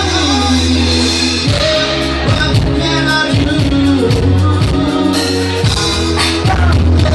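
Band music with drums, bass and a singing voice, loud and continuous.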